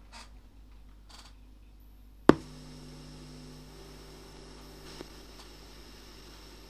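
A sharp click about two seconds in, after which a steady low electrical hum sits under a faint hiss, with a second, smaller click near five seconds.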